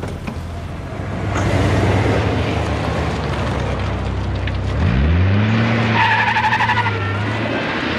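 A car's engine running and pulling away hard. About five seconds in the revs rise sharply and level off, and the tyres squeal briefly a second later.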